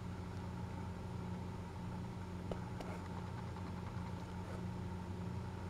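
Steady low mechanical hum, with two faint clicks about two and a half to three seconds in as the plastic toy train track pieces are unclipped from each other.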